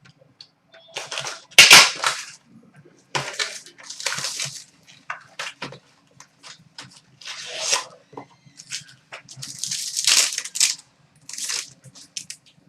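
Hockey card packs and cards being handled: foil pack wrappers crinkling and tearing, and cards sliding and clicking against each other, in several separate rustling bursts.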